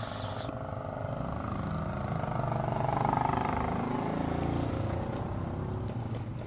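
A motor vehicle's engine running steadily, growing louder about three seconds in and easing off again.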